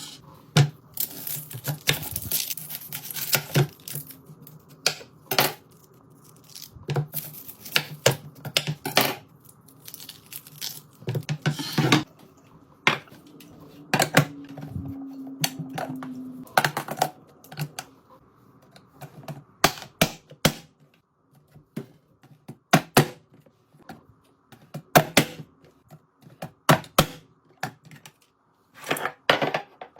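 Irregular clicks, taps and clatter of containers and packaging being handled and set down while a fridge is restocked, with some rustling and tearing of packaging.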